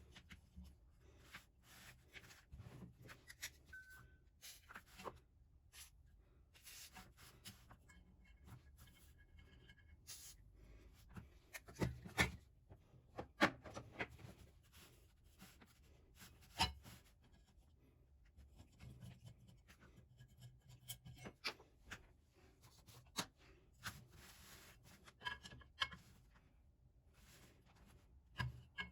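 Hands working on small parts of an old blowtorch: scattered clicks, taps and scratchy rubbing, with a few sharper knocks about halfway through.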